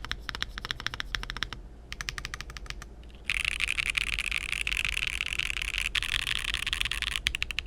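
Mechanical keyboard typing on Akko V3 Cream Blue Pro tactile switches mounted on a TKL board with a polycarbonate plate: quick runs of clacky keystrokes with short pauses. Past the middle comes a few seconds of dense, unbroken clatter from very fast key presses, then separate strokes again near the end.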